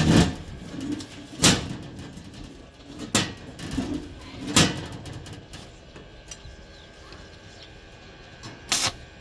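A series of sharp knocks, about one every one and a half seconds and then one more near the end, with a bird cooing softly between them.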